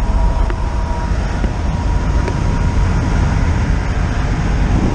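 Cabin noise of a UAZ-2206 'Bukhanka' van at motorway speed: a steady engine and road drone, heaviest in the low end.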